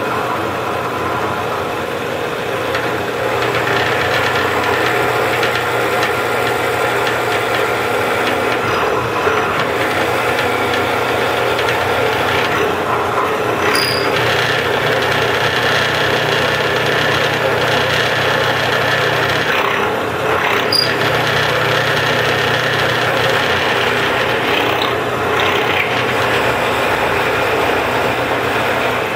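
Drill press running, its half-inch brad point bit boring deep into clamped maple blocks: a steady motor hum mixed with the bit cutting wood. The cutting lets up briefly twice as the bit is eased back.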